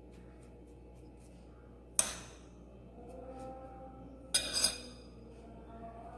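Kitchenware clinking: one sharp clink about two seconds in, then a short clatter of two or three knocks a little after four seconds, over faint background music.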